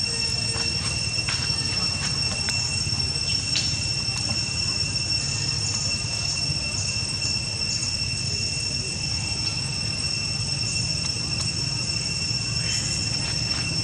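Insects droning in a steady high-pitched whine over a low steady rumble, with a few faint clicks scattered through it.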